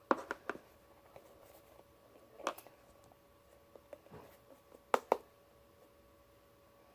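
A few light clicks and knocks of a plastic glue bottle being handled and squeezed as glue goes into a bowl, with two sharp clicks close together about five seconds in.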